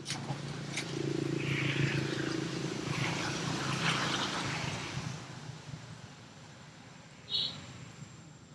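A motor vehicle passing by, its engine hum building about a second in and fading out by about five seconds. Near the end there is a single short, high chirp.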